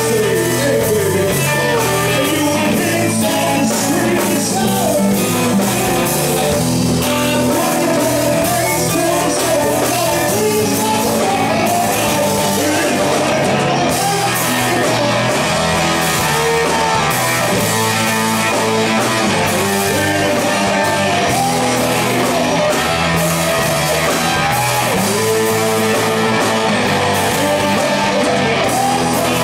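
Live rock band playing a song: a singer with guitars and drums, loud and steady.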